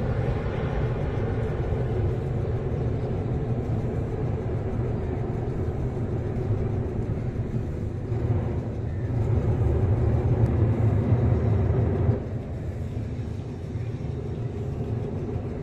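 Boeing 787 Dreamliner's jet engines at takeoff thrust as the airliner lifts off and climbs away: a steady deep rumble that swells in the middle, then drops off suddenly about three-quarters of the way through.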